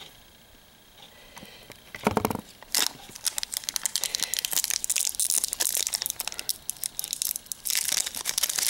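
Plastic wrapper of a Matcha Kit Kat crinkling and crackling as it is handled, dense and continuous from about three seconds in. A short dull bump comes about two seconds in.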